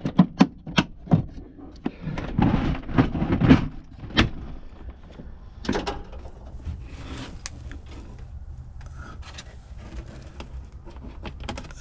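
PVC fittings and pipe pieces knocking and clattering as they are rummaged through on a shelf: a run of sharp knocks with scraping in the first four seconds, then scattered clicks over a steady low hum.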